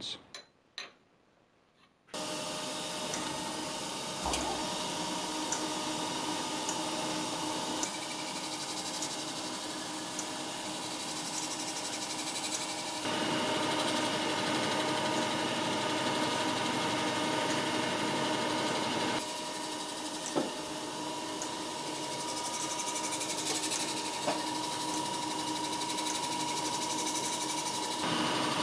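After about two seconds of near silence, a TOS BUAJ 28 cylindrical grinder runs steadily, its wheel grinding a steel arbor under flood coolant. The machine sound carries a steady high tone, with small clicks here and there.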